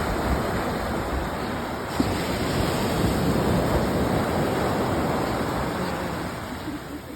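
Ocean surf breaking and washing onto the shore: a loud, steady rush that builds through the middle and eases off near the end.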